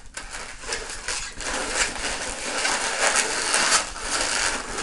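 Latex modelling balloons being handled and twisted, a steady run of rubbing and crinkling rasps as the rubber is wrung around itself to form the cat's feet.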